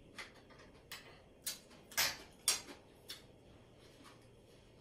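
Metal fork and spoon clicking lightly against a ceramic plate: about six short, faint clicks over the first three seconds, then quiet.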